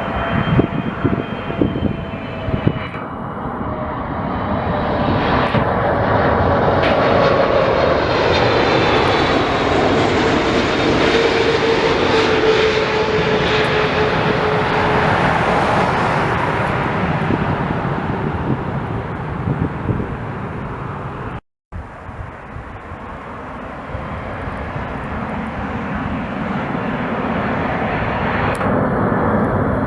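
Jet airliner passing close by, its engines a loud rush with a whining tone that slowly falls in pitch as it goes past. The sound cuts out for a moment about two-thirds through, then jet engine noise carries on.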